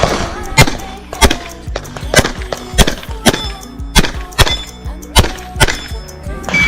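Remington R1 Enhanced 1911 pistol fired in a rapid string at steel targets: about a dozen sharp shots, roughly two a second.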